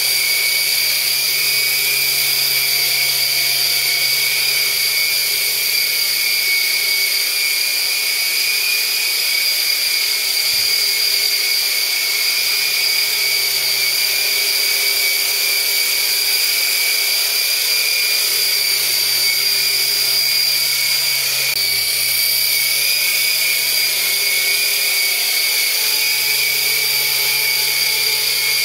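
Double Horse 9088 Apache coaxial RC helicopter in flight: its electric motors and spinning rotors make a loud, steady high-pitched whine that sounds like spinning turbines.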